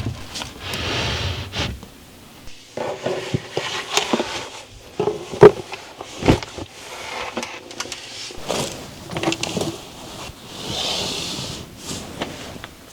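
Household handling noises: irregular knocks, clicks and scrapes of objects being moved and set down, with a sharp knock about five and a half seconds in and a short rustling hiss near the end.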